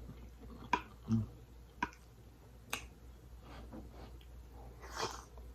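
Eating mouth sounds: scattered wet clicks and smacks from chewing creamy pasta, with a short closed-mouth hum about a second in.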